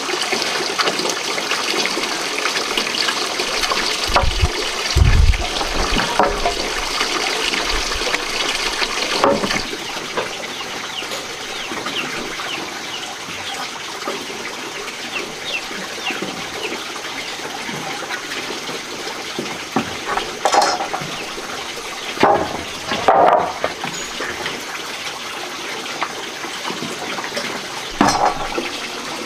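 Running water flowing steadily, with scattered short chirps and a few knocks and thumps about a third of the way in, two-thirds of the way in, and near the end.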